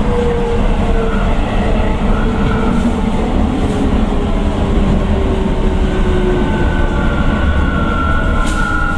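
Keio 9000 series train heard from inside the car: steady rumble of wheels on rail under the whine of its Hitachi IGBT VVVF inverter and traction motors. The whine slowly drops in pitch as the train slows, and a higher whine comes in about six seconds in.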